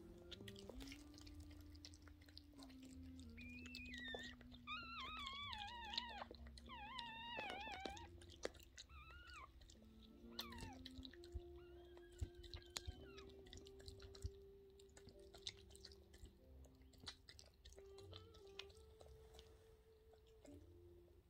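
Yorkshire terrier mother licking and chewing at her newborn puppies' birth sacs: faint wet smacking and clicking throughout. About four seconds in come a few seconds of high-pitched, wavering dog whines, with a fainter one a little later.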